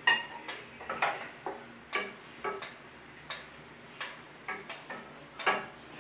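Spatula knocking and scraping against a frying pan while stirring sliced mushrooms and capsicum: irregular sharp taps, two or three a second.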